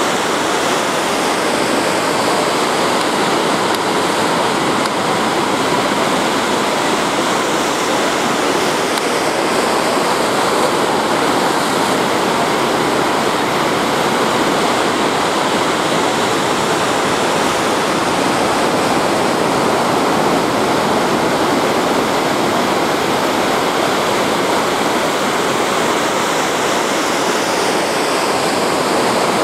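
Ocean surf breaking and washing up the beach, heard as a steady rushing noise with no separate wave crashes standing out.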